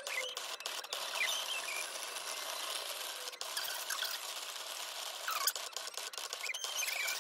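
Cricut cutting machine cutting vinyl: the blade carriage's motors whir and give short rising and falling squeals as the head moves, several times, over a steady hiss with faint clicks.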